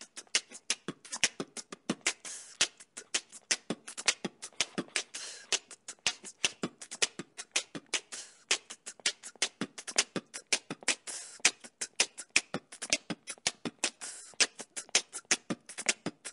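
Background music track: a fast, dry beatbox-style beat of sharp clicks and hits, several a second, with no melody.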